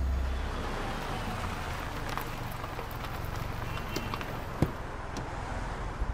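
City street ambience, a steady hiss of distant traffic. A single sharp click about four and a half seconds in as a car door is unlatched and swung open, with a couple of light knocks near the end.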